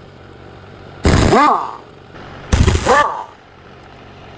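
Pneumatic impact wrench hammering on a truck wheel's lug nuts in two short bursts about a second and a half apart, the wheel ringing with each burst.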